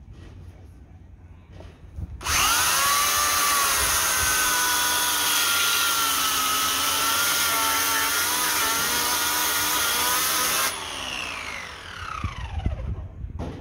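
Oregon CS1400 corded 15-amp electric chainsaw starting about two seconds in and running at full speed with a steady whine. When the trigger is released near the end, the motor spins down with a falling pitch.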